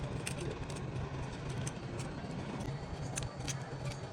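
Small repair tools clicking and tapping against a phone, a handful of light sharp clicks over a steady low hum.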